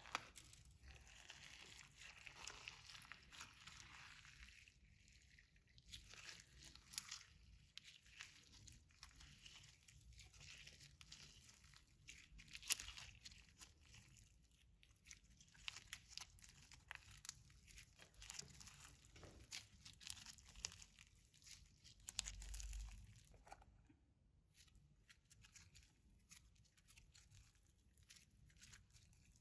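Clear slime with glitter being kneaded and stretched by hand, giving faint sticky crackles and irregular small clicks and pops, a few of them sharper.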